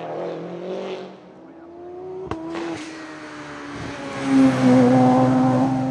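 A hillclimb race car's engine running hard up the hill, changing pitch through the gears with a sharp crack about two and a half seconds in, and growing loudest about four and a half seconds in as it comes close.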